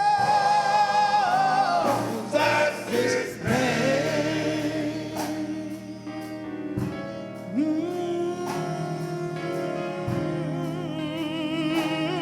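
Gospel singing with instrumental accompaniment: voices hold long notes with vibrato, the pitch stepping to new held notes a few times, over sustained lower chords.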